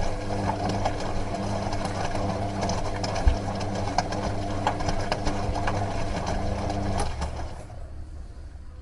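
Washing machine running: a steady motor hum with rapid rattling and clicking. The hum and rattle stop about seven seconds in, leaving a fainter low hum.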